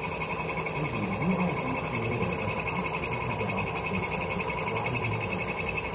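Shop machinery running steadily: a constant hum with several high whining tones and a fast, even pulsing.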